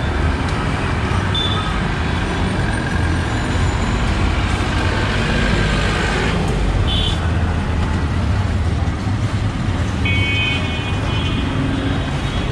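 Street traffic: a steady rumble of bus and motor-vehicle engines on the road, with a few short high tones, the longest about ten seconds in.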